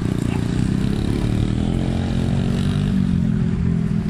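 Small off-road vehicle engine running and revving on a dirt track, its pitch rising a little partway through.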